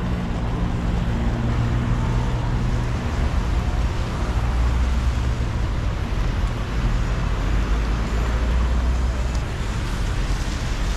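City road traffic on a wet street: a heavy vehicle engine's low hum over a steady hiss of tyres and rain. The hum grows stronger partway through and drops away about nine seconds in.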